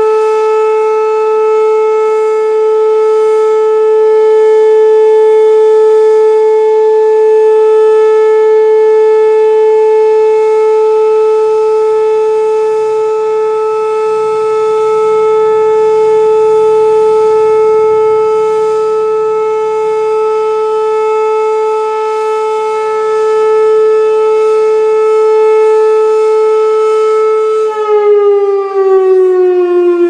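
Whelen WPS-2809 electronic outdoor warning siren sounding a steady, loud, low 435 Hz tone that swells and fades slightly. Near the end its pitch begins to fall.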